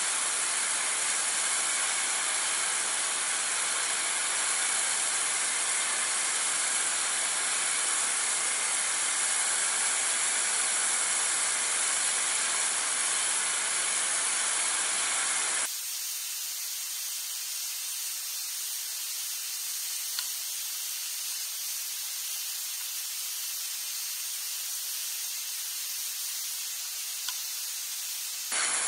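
High-pressure water jet from a Kärcher K2 Compact pressure washer hissing steadily as it blasts a concrete block wall. About halfway through the hiss abruptly turns thinner and higher, the fast-forwarded stretch of the cleaning.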